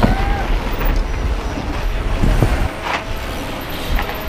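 Wind rumbling on the microphone, with a few sharp knocks and clatter from mountain bikes rolling over dirt and up wooden kicker ramps.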